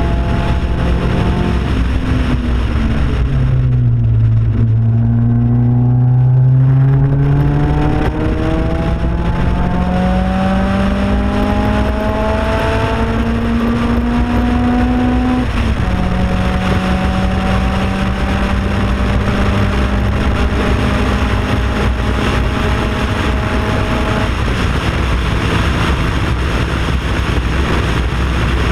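Race car's engine heard from an on-board camera mounted outside the car during a track lap. The pitch drops low about three seconds in as it slows, climbs steadily under acceleration, steps down once at an upshift about fifteen seconds in, holds steady along the straight, then falls as the driver lifts off about twenty-four seconds in. Wind rushes over the microphone throughout.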